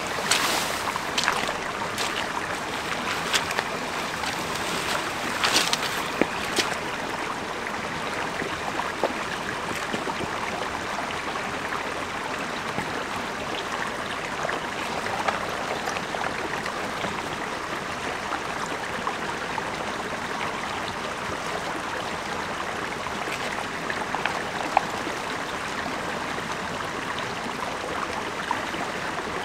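Small mountain stream running steadily over rocks. A few knocks and rustles in the first seven seconds.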